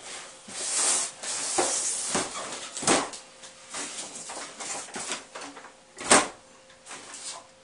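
Handling noise from a cardboard box as an RC truck is lifted out of it: rustling and scraping of cardboard with a few knocks, and a sharp thump about six seconds in as the truck is set down on the wooden table.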